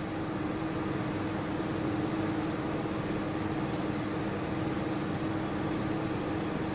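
Steady electrical hum over an even background hiss, with a faint high chirp about every two seconds.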